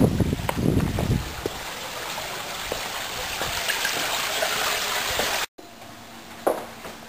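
Water trickling and splashing in a garden koi pond, a steady running-water hiss that grows louder about halfway through, with a few low thumps in the first second. It cuts off abruptly, leaving quiet room tone with a faint steady hum.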